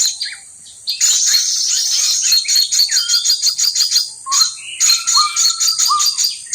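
Small birds chirping in fast, high, repeated notes, starting about a second in, with a few short lower whistled notes among them, over a steady high insect drone.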